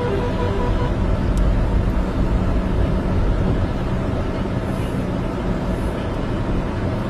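Steady low rumble of road vehicles' engines running, with traffic held up on the road.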